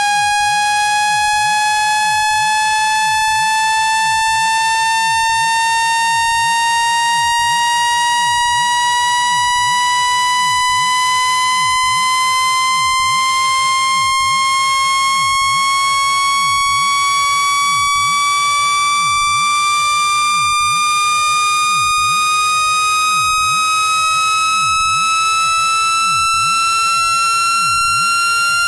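Electronically generated speaker-cleaning tone: a buzzy, overtone-rich tone at constant loudness whose pitch rises slowly and evenly. It is played through a phone or portable speaker to shake water and dust out of the speaker grill.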